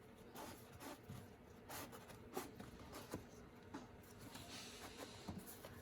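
Near silence with faint, scattered small clicks and scratchy rustles of hands handling shop rags and the plastic oil filter housing cap.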